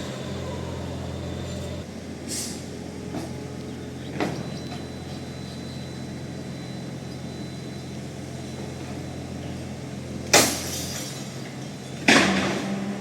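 Heavy construction machinery's diesel engine running steadily, with a few short sharp noises from the work: two small ones early and two loud ones near the end, each trailing off.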